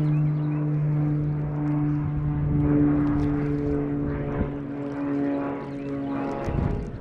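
Bass boat's outboard motor running steadily at speed, a low drone with a strong steady tone that eases off near the end.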